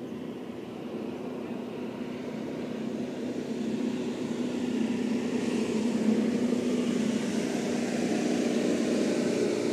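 Motorboat engine running steadily as the boat speeds past close to shore, its drone growing louder over the first five or six seconds as it nears, then holding.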